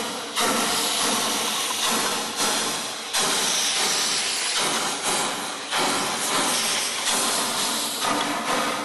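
Narrow-gauge steam locomotive working slowly, with a regular exhaust chuff about every three-quarters of a second and steam hiss between the beats.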